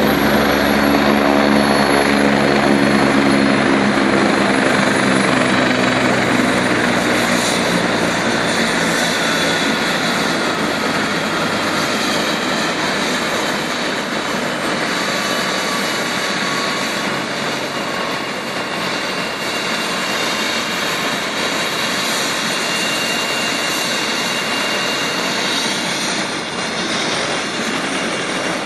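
Helicopter running on the ground with its rotor turning: a steady rush of rotor and turbine with a high whine over it. A low beating from the rotor is strong in the first few seconds and then fades, and the whole sound grows slightly quieter.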